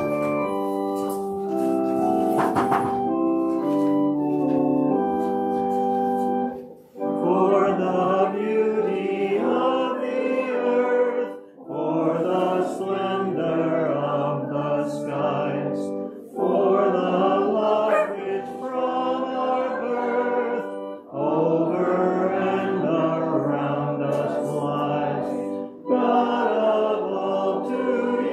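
Organ playing a short introduction in held chords, then a congregation singing a hymn introit to organ accompaniment from about seven seconds in, in phrases with brief pauses for breath between them.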